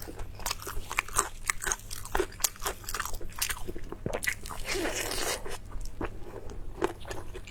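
Close-miked eating: crunchy bites and chewing, with many quick crackling clicks and a longer noisy stretch a little before five seconds in, over a steady low hum.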